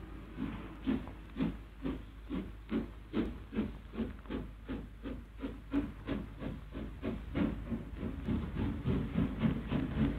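LMS Princess Royal class steam locomotive No. 6207 pulling away under steam: a regular chuff of exhaust beats with steam hiss, the beats coming faster as she gathers speed, from about two a second to about four a second near the end.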